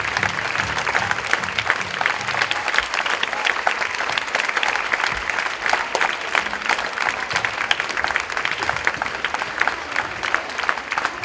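Audience applauding steadily, a dense patter of clapping, with low music fading out in the first couple of seconds.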